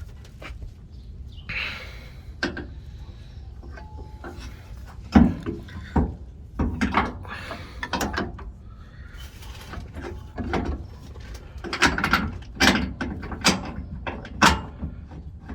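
Irregular metal knocks, clunks and scrapes as a new Rancho QuickLift strut assembly is worked into place in the front suspension and its bolts are lined up. The loudest knock comes about five seconds in, with a burst of clatter near the end.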